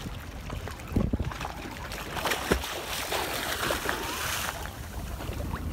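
A swimmer splashing in harbour water, with a louder stretch of splashing about three to four seconds in as she ducks under.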